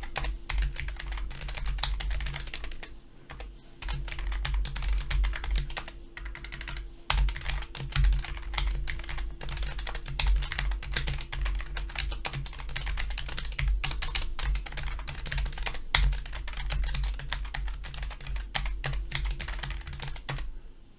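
Continuous fast typing on a Logitech G913 TKL low-profile mechanical keyboard with tactile brown switches: a dense stream of key clacks, with brief pauses now and then, stopping just before the end.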